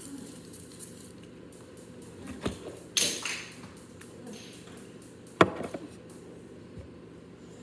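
Handling noises close to the microphone: a knock, then a short rustling hiss, then a sharp, louder knock.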